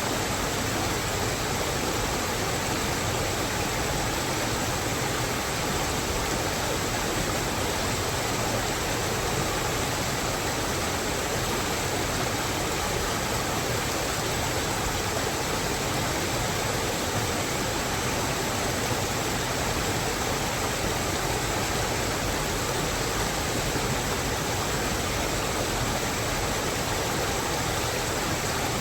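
Water rushing steadily as an even hiss that does not change or break.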